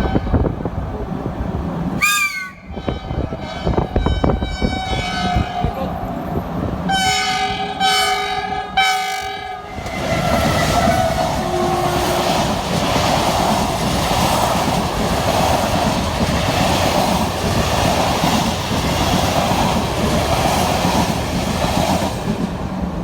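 Train horn sounding three short blasts, then a train passing with a steady loud rumble of wheels on rails.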